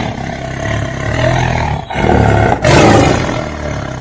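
Loud, rough animal-like roar used as a dramatic sound effect, coming in several surges, loudest a little past halfway and fading near the end.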